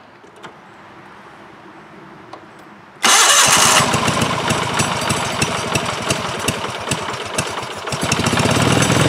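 The engine of a 1990 Wheel Horse 520-H garden tractor comes in abruptly and loud about three seconds in, running with fast, even firing strokes and getting louder near the end. It is running with the choke still closed. Before it there are a few seconds of quiet with faint clicks.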